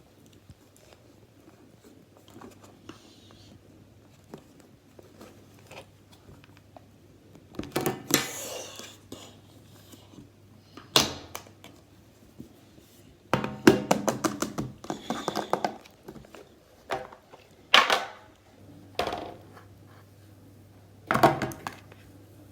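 Slime being handled, in several bursts of crackling and popping clicks with quiet pauses between them.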